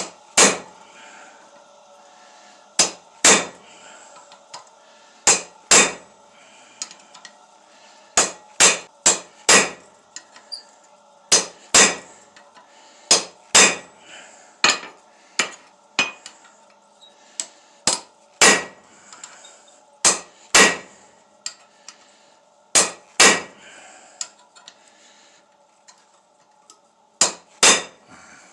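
Hand hammer striking steel on an anvil during hand forging: single blows, quick pairs and runs of three or four, unevenly spaced, each ringing briefly, over a faint steady hum.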